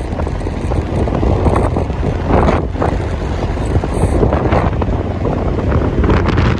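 Wind buffeting the microphone of an open vehicle moving along a paved road, with a steady low rumble of travel underneath and irregular gusts.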